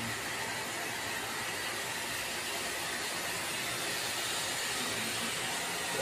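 Steam boiler's burner blower fan running, a steady rushing of drawn air with a faint high whine.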